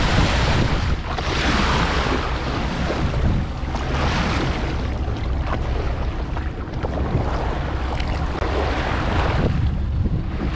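Sea water splashing and rushing right at the microphone, swelling every couple of seconds, over a steady low rumble of wind on the mic.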